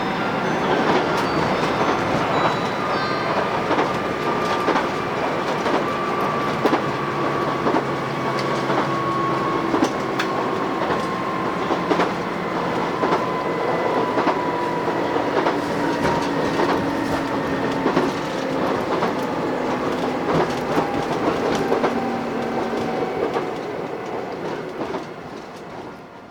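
JR Shikoku 2000 series tilting diesel railcar running, heard from inside the passenger cabin, with wheels clicking over rail joints and points. A whine falls steadily in pitch as the train slows on the approach to its terminus. The sound fades out near the end.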